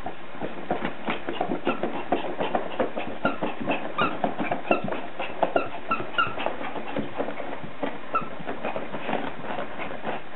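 Yorkshire terrier worrying a cloth sheet: a dense run of quick rustling, scuffing strokes as it tugs and shakes the fabric, with several short high yips mixed in around the middle, tapering off near the end.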